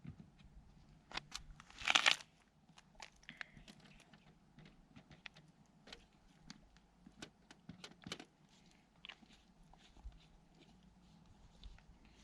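Scattered light clicks and ticks, with one louder rustle about two seconds in, from hands working on a bicycle as its chain is oiled.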